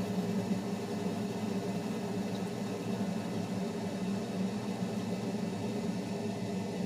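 Steady machine hum with an even, unchanging pitch.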